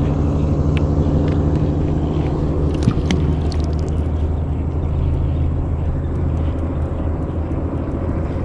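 A boat's engine running steadily at a constant low pitch, with a few light knocks about three seconds in.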